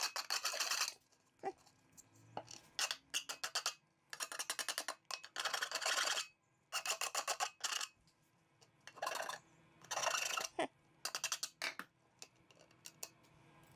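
Scraping on the edge of a white lamp globe, in short runs of fast rasping strokes with brief pauses between: burr shards left from cutting are being cleaned off.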